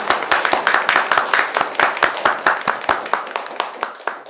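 A small group of people clapping their hands in applause, several claps a second, tapering off near the end.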